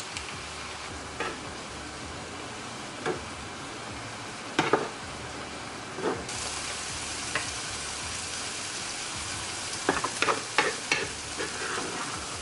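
Leeks frying in a non-stick pan, a steady sizzle that gets louder about halfway through as crème fraîche is stirred in. Occasional knocks of a spoon and a wooden spatula against the pan, with a quick run of scraping, stirring strokes near the end.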